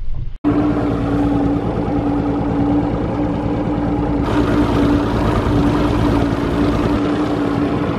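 An engine running steadily at an even speed, a constant drone with one strong held tone, starting just after a brief cut about half a second in.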